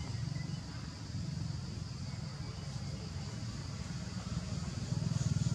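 A motor engine running steadily, with a fast even low pulse, getting louder about five seconds in; a steady high-pitched hiss sits over it.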